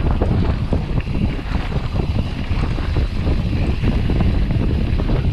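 Wind buffeting the microphone of a mountain bike rider's camera while riding down a dirt trail, with a steady low rumble from the tyres and frequent small knocks and rattles from the bike.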